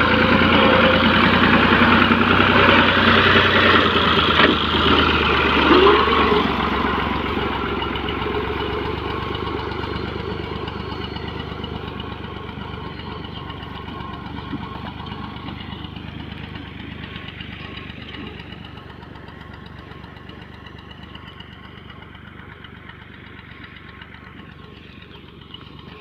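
NH 480 tractor engine running steadily while it drives a front-mounted wheat reaper, loud at first and then growing steadily fainter.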